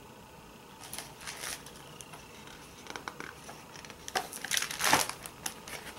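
Rustling and crinkling of a hardcover picture book's pages and cover as the book is handled and a page is turned. There are scattered soft rustles at first, then denser, louder ones from about four seconds in.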